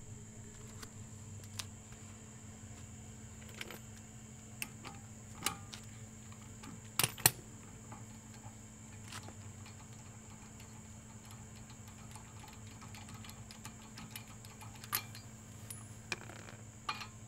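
Hand tools clinking and tapping now and then during brake work on a jacked-up car, with a pair of sharper clicks about seven seconds in. A steady faint hum runs underneath.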